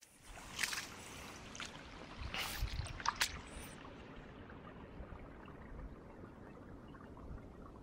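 Footsteps splashing through shallow floodwater on grass: a handful of short splashes in the first three and a half seconds, then only faint wet noise.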